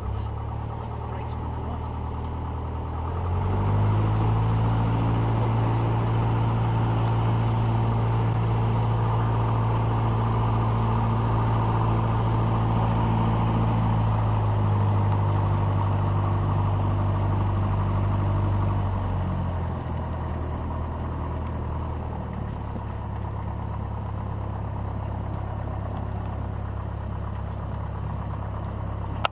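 Single-engine light aircraft's piston engine and propeller running steadily. The engine note gets louder about three seconds in, holds, then eases back to a lower steady level about two-thirds of the way through.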